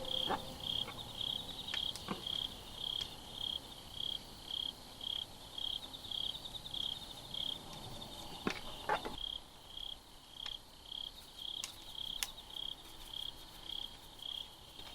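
A cricket chirping steadily, short high chirps a little over two a second, with a few sharp clicks over it, the strongest about eight to nine seconds in.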